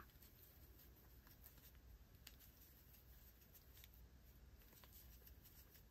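Near silence: faint handling noise of a crochet hook working yarn, with a few soft ticks.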